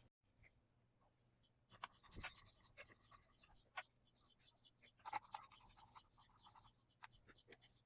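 Faint clicks and scratching of a small Torx screwdriver turning screws into a laptop's back cover.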